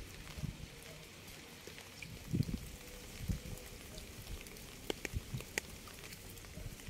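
Rain falling, a steady hiss with scattered drops ticking close by, a cluster of ticks about five seconds in, and a few soft low thuds.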